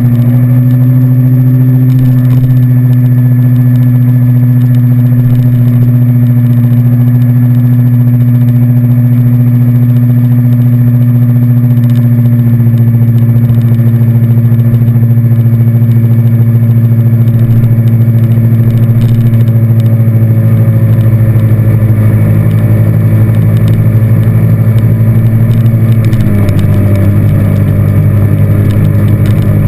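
ATV engine running steadily while riding along, heard close up from the handlebars. Its pitch drops slightly about 26 seconds in.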